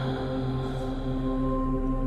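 Soft ambient background music of steady, held tones.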